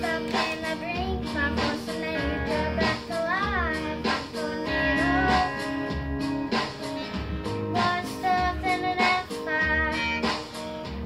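A young girl singing a country-pop song over backing music with guitar and a steady beat, with a wavering held note about three and a half seconds in.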